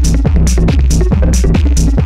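Techno pattern played on a Korg Electribe ESX sampler/drum machine and run through an Etek Optima compressor/limiter: a loud, heavy sustained bass line under short hissy high hits about twice a second.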